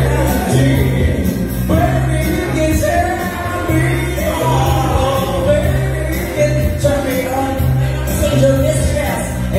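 A woman singing into a microphone through a PA system, over backing music with a steady, heavy bass beat.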